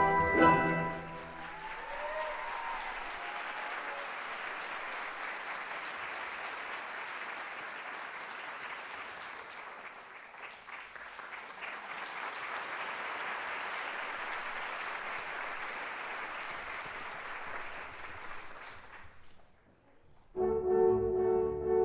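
Theatre audience applauding steadily for about eighteen seconds after the orchestral music stops, fading away near the end. Orchestral music with horns starts again just before the end.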